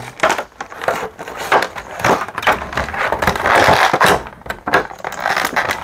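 Clear plastic packaging tray crackling and crinkling as a boxed action figure is worked out of it: a run of sharp clicks and snaps, thickest about three to four seconds in.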